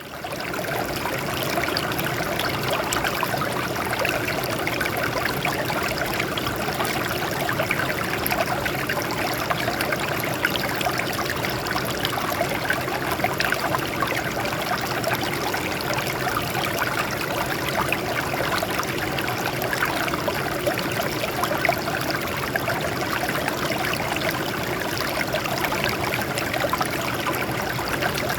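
Water running and splashing over rocks in a steady stream, a continuous dense burble that fades in over the first second.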